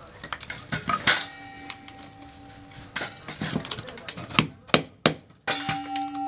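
A knife splitting and shaving a dry piece of wood into kindling: a run of sharp cracks, knocks and scrapes as the wood breaks apart. Background music holds a steady note from about a second in to three seconds, and again near the end.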